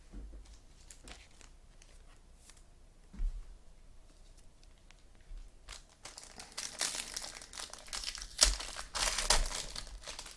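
Trading card pack wrapper being torn open and crinkled by hand, with light handling clicks at first and a dense stretch of crinkling and tearing over the last few seconds.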